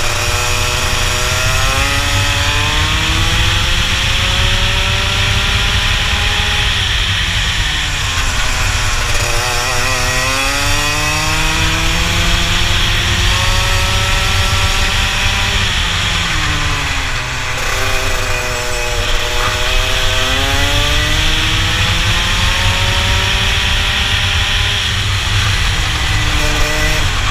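Rotax kart engine at race pace. Its revs climb on each straight and fall sharply under braking about three times, with a steady low rumble underneath.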